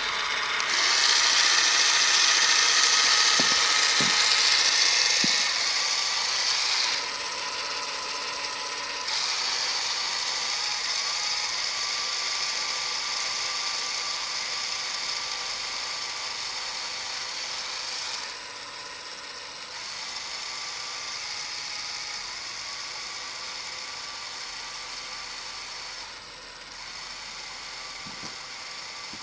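Small electric motors and plastic gears of a LEGO Technic RC model whirring with a steady high whine, which drops in level in steps several times.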